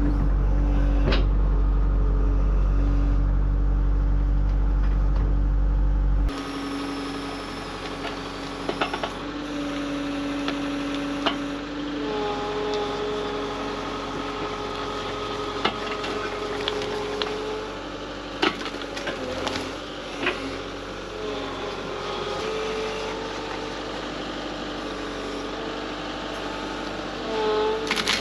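Heavy machinery engine running: a loud, deep, steady hum that cuts off suddenly about six seconds in. It gives way to quieter running with a whine that shifts in pitch and scattered knocks and clanks.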